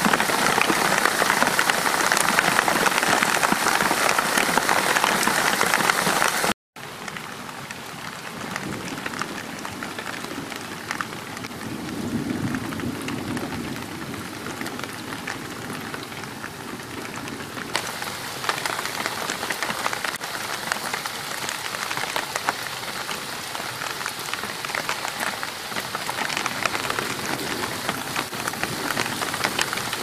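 Heavy rain pouring onto a lake surface, a loud dense hiss. After an abrupt cut about six and a half seconds in, lighter rain patters on the water, with a brief low rumble a few seconds later.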